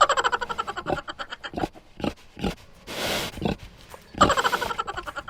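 A pig calling repeatedly. Two longer pulsed calls fall in pitch, one at the start and one about four seconds in, with short single calls between them.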